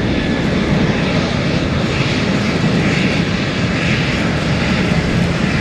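Boeing 747-428's four General Electric CF6-80C2 turbofans at climb thrust just after takeoff: a loud, steady jet rumble, heaviest in the low end.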